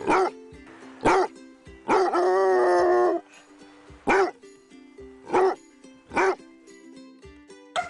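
A dog barking loudly in single barks about a second apart, six in all, with one long wavering cry about two seconds in, over background music.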